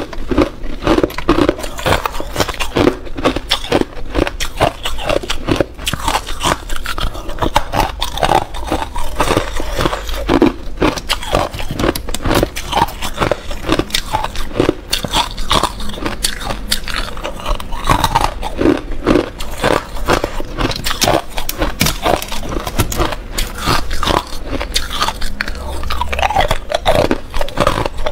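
Thin, clear ice shards being bitten and chewed close to a clip-on microphone: a dense run of sharp crunches and cracks.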